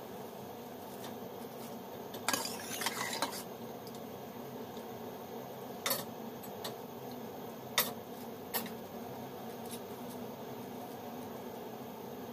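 Thin plastic ice candy bags filled with ube mixture crinkling for about a second as one is twisted and tied, followed by a few short light knocks, over a steady low hum.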